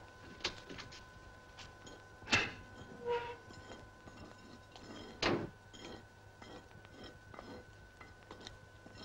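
Knocks, clicks and a scrape as a tiled stove's small metal door is opened and handled. A loud knock comes about two seconds in and another about five seconds in, with a short squeak just after the first, over a steady hum.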